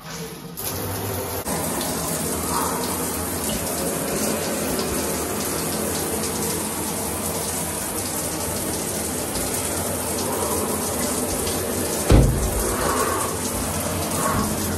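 Shower turned on at its single-handle valve and running: a steady hiss of water spray hitting the tub and shower walls. There is a brief louder burst about twelve seconds in.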